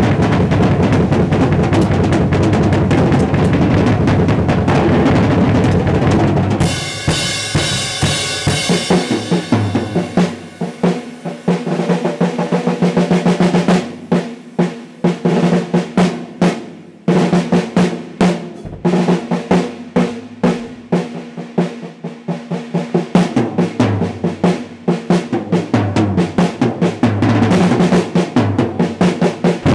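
Drum kit solo played hard: fast rolls and fills on snare and toms with bass drum strokes underneath. The strokes run dense and continuous, break into rapid separate hits through the middle, and turn dense again near the end.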